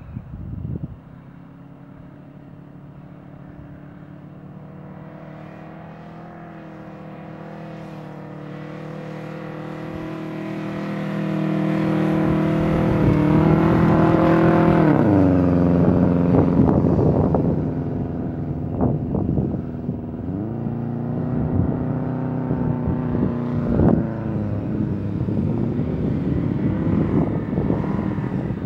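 Subaru Forester STI's flat-four engine revving hard under load as it climbs sand dunes, growing louder as it comes close around the middle. The revs drop suddenly just past the middle, then build again as it climbs the next slope.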